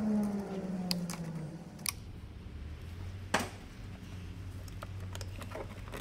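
A falling, buzzy tone fades out in the first second and a half. Then come a few sharp plastic clicks and taps, the loudest about three seconds in, from hands working on plastic wiring connectors and the fuse box in a car's engine bay.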